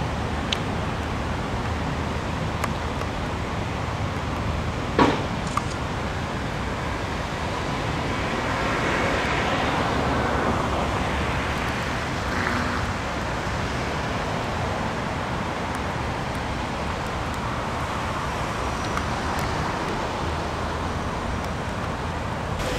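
Steady rushing noise of the flooded Delaware River running high and fast, with wind on the microphone. About eight seconds in, a passing road vehicle swells up and fades, and a single sharp knock comes about five seconds in.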